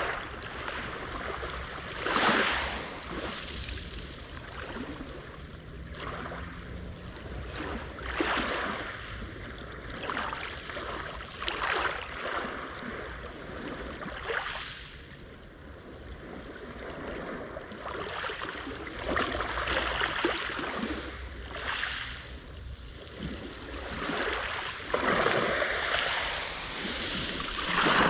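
Sea waves breaking on the shore and washing back, a surge every few seconds, with some wind on the microphone.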